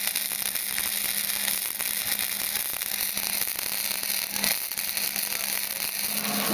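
Flux core wire welder's arc crackling steadily during a weld, a dense sizzle of fine pops, with a steady low hum underneath.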